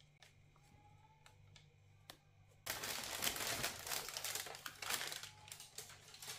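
Crinkling and rustling of shoe packaging being handled. It starts about two and a half seconds in, after a near-silent stretch broken by a few faint clicks.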